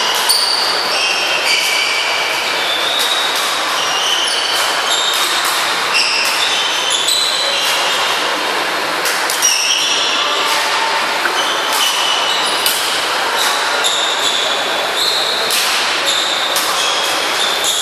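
Sneakers squeaking on a wooden badminton court: many short, high squeaks overlapping one another, with sharp clicks of rackets striking the shuttlecock over steady hall noise.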